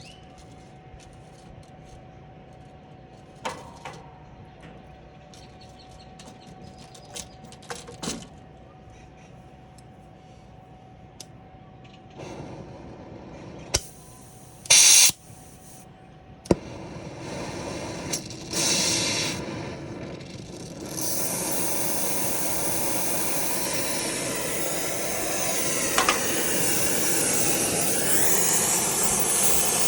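Clicks and knocks of tool handling, then several short bursts of gas hissing from a brazing torch. From about 21 s in comes a steady loud hiss of the lit torch flame, building slightly near the end.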